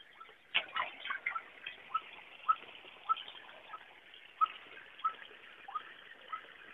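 White-breasted waterhen calls: short notes repeated about twice a second at an even pace. Leaves brush and crackle against the microphone about half a second in.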